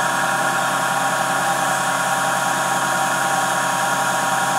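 Miniature metal lathe running at a steady speed, its electric motor and belt drive giving a constant whine and hum.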